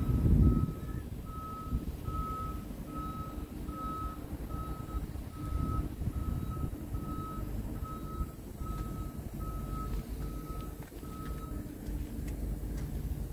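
A vehicle's reversing alarm beeping steadily at one pitch, about two beeps a second, stopping near the end, over the steady low rumble of a running engine that is briefly louder at the very start.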